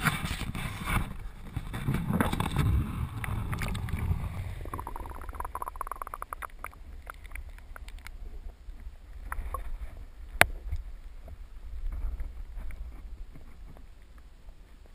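Water splashing and sloshing against a camera housing as it goes into the water. Then the muffled underwater sound: a steady low rumble with scattered faint clicks and one sharp click about ten seconds in.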